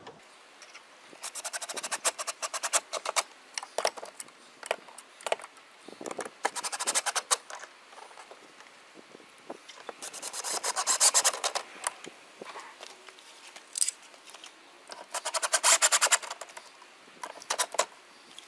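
Ryobi cordless drill driving screws through a hand rail's mounting bracket into an RV wall, in several short bursts of rapid clicking.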